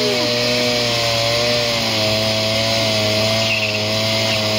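Moped's two-stroke engine held at high revs in a burnout, the rear tyre spinning on the mat. The buzz stays steady, its pitch wavering slightly.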